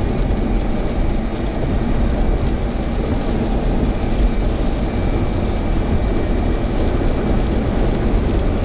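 Steady road and wind noise heard from inside a moving vehicle, heaviest in the low end and without breaks.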